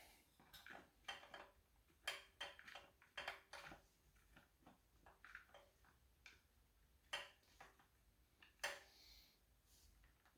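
Faint, scattered metallic clicks and clinks of small engine parts and hand tools being handled during carburetor reassembly, against near silence.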